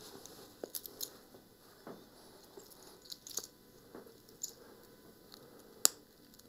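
Small, faint clicks and clinks of a stainless steel and crystal watch bracelet being handled and fastened on the wrist, with one sharper click a little before the end.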